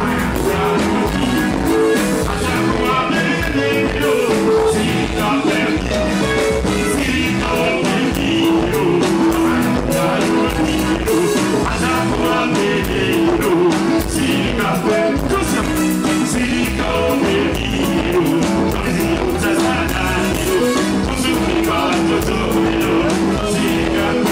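Live band music with a man singing into a microphone over a steady beat of drums and bass guitar.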